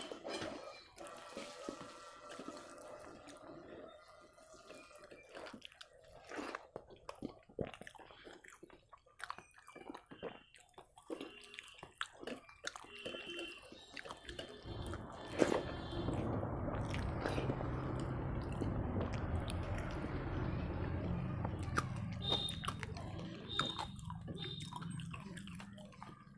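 Eating rice and dal by hand at close range: scattered wet squelches and smacks of the dal-soaked rice being mixed and chewed. About halfway through, a steady low rushing noise sets in and lasts about ten seconds.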